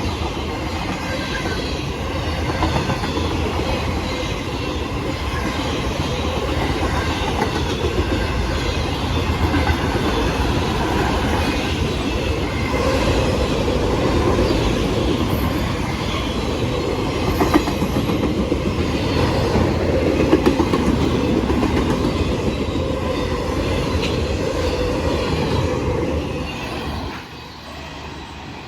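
Norfolk Southern freight train rolling past, its wheels running steadily on the rails; the sound drops off suddenly near the end as the train moves away.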